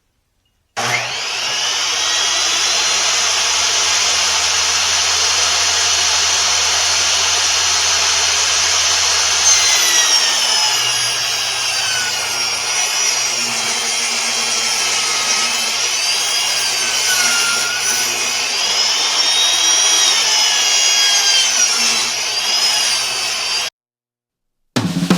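Electric power saw ripping a 1.5-inch strip from an oak board. A steady high whine holds for the first several seconds, then its pitch wavers up and down as the blade works through the cut. It starts suddenly about a second in and cuts off suddenly near the end.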